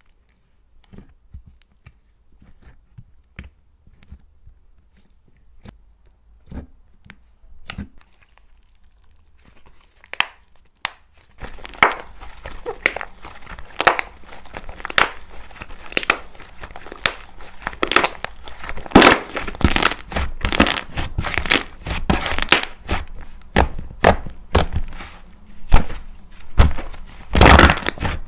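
Slime being handled and squeezed: sparse soft clicks and pops at first, then, from about eleven seconds in, dense loud crackling and crunching.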